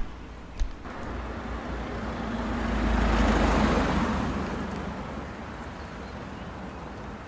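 A road vehicle passing by: engine and tyre noise swells, is loudest about three to four seconds in, then fades away.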